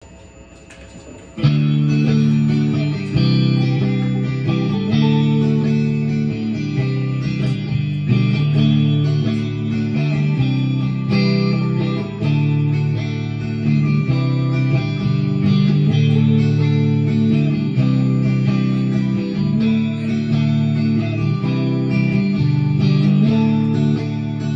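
Electric guitar music, starting suddenly about a second and a half in, with sustained chords and notes that change every second or so: the instrumental opening of a rock song.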